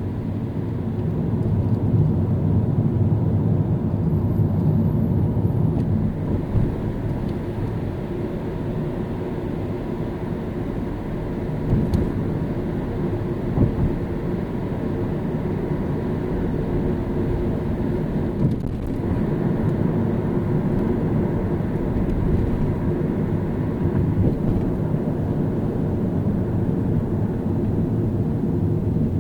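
A car being driven in city traffic: steady low road and engine rumble with tyre noise, with two brief bumps about twelve and fourteen seconds in.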